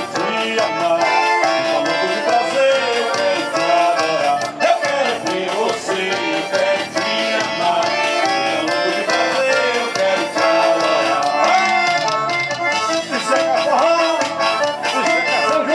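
Live forró band playing an instrumental passage: an accordion melody over a steady percussion beat.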